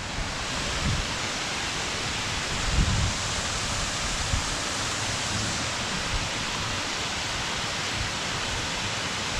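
Steady rush of a waterfall's falling water, with a few low thumps, the strongest about three seconds in.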